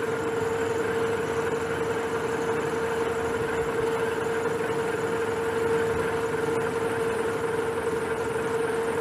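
Metal lathe running under a slow cut, a parting tool feeding into the spinning steel stock to part off a washer; a steady whine holds over the even noise of the machine and the cut.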